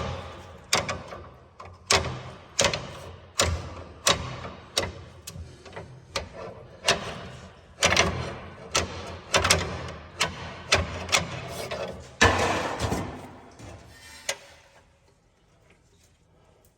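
Hand tools working on a block heater in an engine block: a steady run of sharp metallic knocks and clicks, about three every two seconds, that stops about fourteen seconds in.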